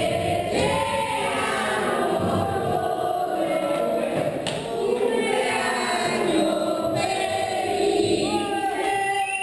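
Background music with choir-like singing: several held voices sliding between notes.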